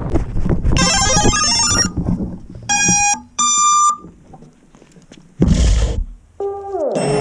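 A run of short electronic beeps and tones, the last two single beeps with the second pitched higher, then a brief rush of noise and falling synth-like glides near the end.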